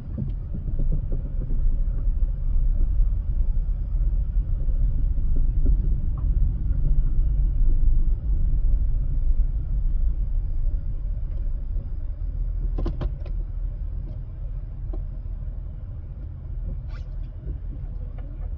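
Steady low rumble of a car driving on a road, swelling over the first few seconds and easing off through the second half, with a few faint clicks near the end.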